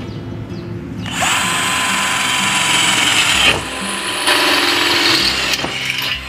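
Kapusi 12 V cordless drill boring through 1 mm-thick hollow steel tube in two runs. The first runs from about a second in to about three and a half seconds; after a short drop a second run lasts until near the end. The drill cuts the steel without trouble.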